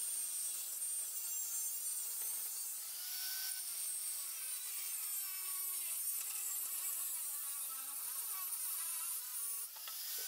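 Angle grinder with a cut-off disc cutting through the quad's tubular steel frame: a steady hissing grind over the motor's whine, its pitch wavering as the disc bites in. The cutting briefly eases near the end.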